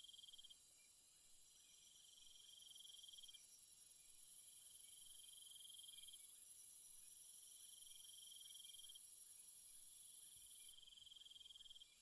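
Faint chorus of insects: a high trill lasting a second or two, repeating about every three seconds, over a continuous very high-pitched buzz that drops away abruptly near the end.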